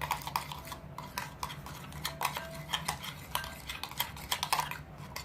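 Slime being stirred in a bowl with a utensil, mixing in saline solution: quick, irregular clicks and scrapes of the utensil against the bowl, several a second.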